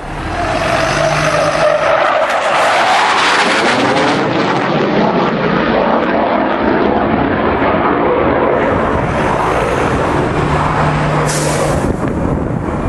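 Panavia Tornado jet making a fast pass overhead, its twin RB199 turbofans giving a loud, continuous jet noise. The noise builds within the first second, shifts in tone as the jet goes over, and eases a little near the end.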